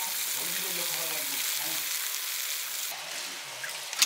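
Food frying in a pan: a steady sizzle that eases off about three seconds in, followed by a sharp click near the end.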